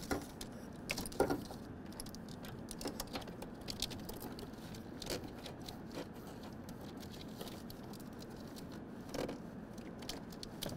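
A wiring harness and its plastic connectors being handled and pushed down into place in an engine bay: scattered light clicks, taps and rustles of wire and plastic.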